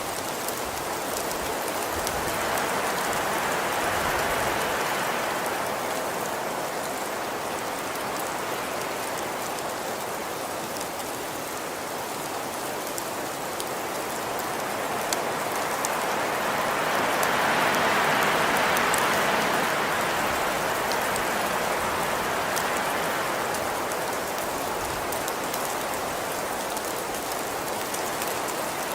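Steady rain falling on a surface, with fine scattered drop ticks; the downpour swells gently twice, about four seconds in and again past the middle, then settles back.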